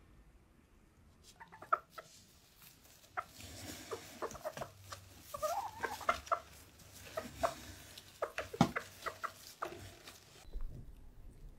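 Silkie hens clucking in a cardboard box, with one rising-and-falling call about halfway through, amid rustling and tapping of straw nesting and cardboard as an egg is lifted from the nest.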